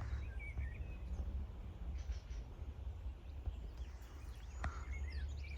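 Outdoor ambience: a few short, high bird chirps over a steady low rumble, with a single sharp click about two-thirds of the way through.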